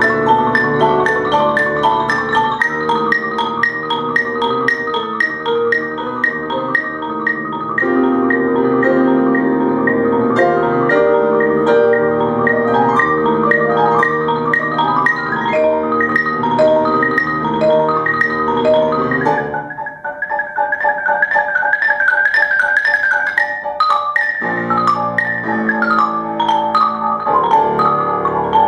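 Marimba and grand piano playing together, the marimba in rapid runs of mallet strokes. About twenty seconds in the low notes drop away, leaving a fast high figure that carries on alone, and the low notes come back about four seconds later.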